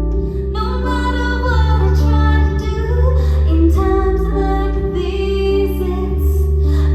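A woman singing a slow song live over sustained low chords.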